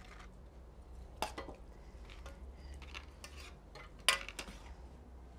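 A spoon clinking and scraping in an enamel pan while scooping salsa, with a few separate sharp clinks, the loudest about four seconds in.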